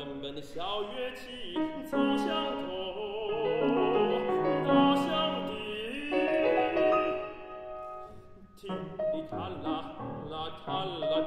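A tenor sings a Chinese art song in a classical, operatic style, with clear vibrato, accompanied by a grand piano. The voice and piano dip briefly about eight seconds in, then the piano carries on with the voice.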